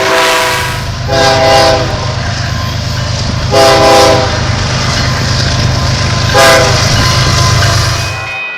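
Locomotive horn sounding three blasts, the last one short, as a horn salute. Under the horn is the steady rumble of the passing train, which falls away near the end.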